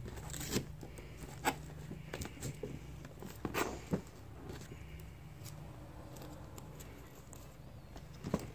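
A child's hands tearing and scraping at a cardboard toy box, pulling its flap open: a few short rips and scrapes, most of them in the first four seconds, then quieter rustling.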